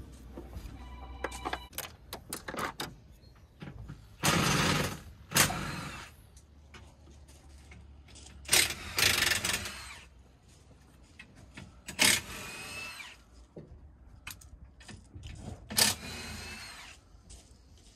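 A cordless power tool spinning in about half a dozen short bursts, each under a second to about a second and a half, some with a whining motor pitch. Clicks and clanks of hand tools on metal come between the bursts.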